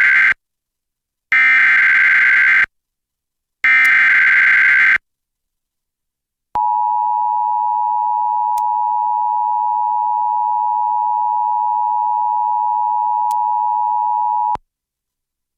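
Emergency Alert System header and attention signal for a severe thunderstorm warning. First come the end of one and then two more of the three identical SAME data bursts, each about a second and a third long with short gaps between. After a pause of about a second and a half, the steady two-tone attention signal (853 and 960 Hz) holds for about eight seconds and cuts off.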